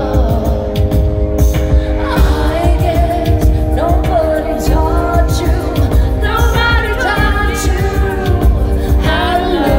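Live female lead vocal sung over a full band: sustained keyboard chords, heavy bass and drums. Recorded from the audience in a large hall.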